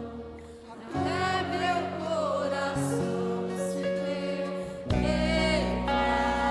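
Live worship music: a slow praise song with sustained keyboard chords and bass, and a voice singing a wordless, gliding melody over them. The level dips briefly near the start, then the full chord comes back in about a second in and again around five seconds.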